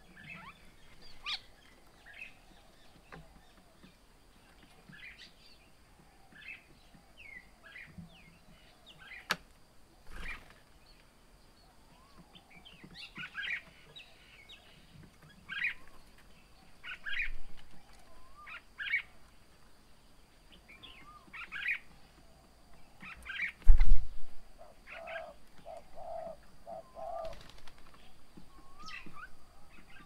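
Birds at a feeding table, common mynas among them: short chirps and calls come again and again, with wing flaps as birds fly in and land. About three-quarters of the way through there is one loud low thump, followed by a quick run of lower chattering notes.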